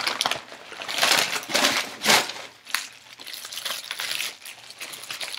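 Crumpled packing paper rustling and crinkling as it is handled and pulled from a cardboard box, louder in the first couple of seconds, then fainter crinkling of the plastic wrap around a pair of skateboard trucks.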